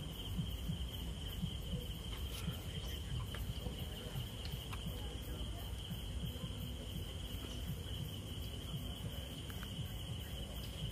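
Steady chorus of night insects such as crickets, one unbroken high-pitched trill, over a low rumble.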